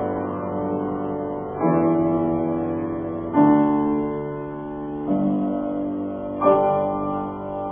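Slow piano music: a new chord is struck four times, about every one and a half seconds, each one left to ring and fade.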